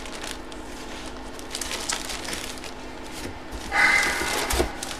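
Clear plastic poly bag around a sports jersey crinkling and rustling as hands handle it, with many small crackles and a louder burst a little under four seconds in.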